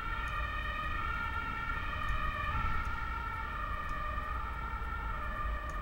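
Emergency vehicle siren wailing, its pitch slowly rising and falling.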